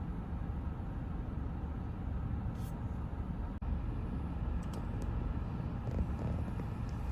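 Steady low rumble of a car driving, heard from inside the cabin, briefly cutting out about three and a half seconds in.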